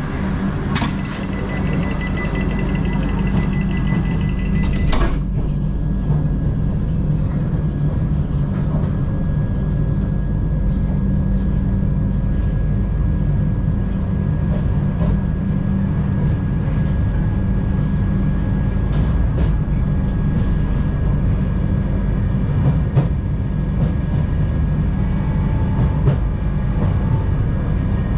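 Tejas Express passenger coach rolling into a station, heard from inside: a steady low rumble and hum with scattered light clicks from the wheels. About a second in, a high ringing tone with overtones starts, lasts about four seconds and cuts off sharply.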